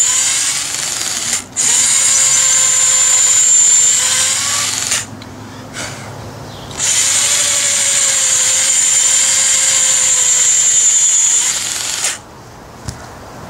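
Cordless drill boring into the old wooden handle stuck in a sledgehammer head's eye, to clear it out. The drill runs in three stretches: a momentary break about a second and a half in, a pause of under two seconds around five seconds in, then a final long run that stops about twelve seconds in.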